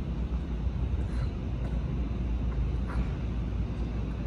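Steady low rumble of outdoor city background noise, with a couple of faint short scrapes.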